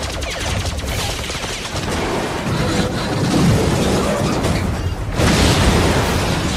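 Animated sci-fi battle sound effects over a dramatic score. Rapid weapon fire in the first second gives way to heavy booms, and a loud blast comes about five seconds in.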